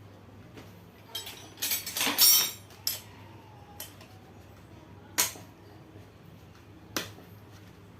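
Metal tools and engine parts clinking and clattering as they are handled during an engine teardown. A burst of clattering comes about 1 to 2.5 seconds in, then single clinks near 3, 5 and 7 seconds.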